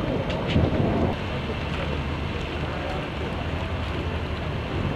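Wind buffeting the camcorder microphone as a steady low rumble, with gusts in the first second. Faint crowd voices sit underneath.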